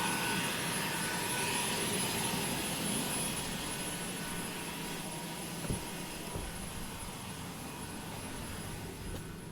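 Steady rushing of air from a blower aimed at the driver's side of the windshield, heard inside the cabin as wind noise leaking past the windshield seal. The owner takes it for a seal that is not sealing.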